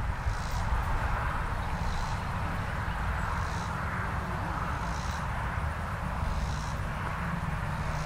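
Steady outdoor background noise: a low rumble and a hiss, with a faint high-pitched pulse about every second and a half.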